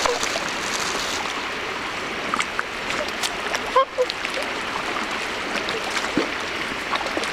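A flock of swans calling: short calls scattered over a steady background rush, with a louder pair of calls about four seconds in.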